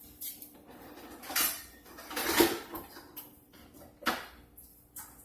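Kitchen dishes and utensils clattering as they are handled: a few separate knocks and clinks, the loudest about two and a half seconds in.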